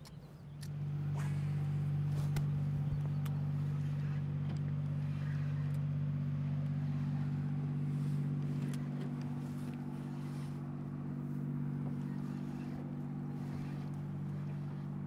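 Boat's outboard motor idling with a steady low hum, coming in about half a second in. A few faint clicks sit over it.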